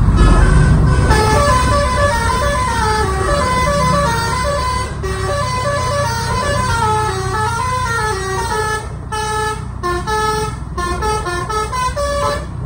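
Telolet (basuri) musical air horn on an Adiputro Jetbus 5 coach playing a quick melody of many short stepping notes, a remix tune, over the low rumble of the bus and road traffic.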